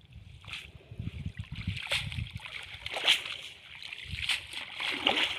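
Shallow muddy water splashing and sloshing as a mesh fishing net is dragged through it and lifted out, water pouring from the mesh in a run of irregular splashes.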